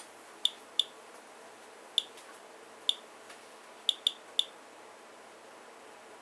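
Geiger counter clicking at random, irregular intervals, seven short chirp-like clicks in a few seconds, each one a detected radiation count. It is counting radiation from a rain sample during a timed ten-minute test.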